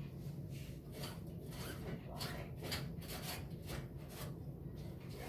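Irregular short scraping and rubbing noises over a steady low hum.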